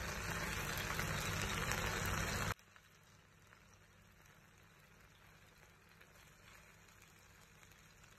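Beef seekh kababs sizzling in shallow oil in a frying pan, a steady hiss that cuts off abruptly about two and a half seconds in, leaving near silence.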